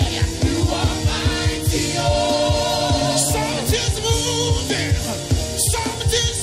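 Live gospel worship music: a band playing a fast, steady drum and bass beat with several cymbal crashes, under voices singing long held notes.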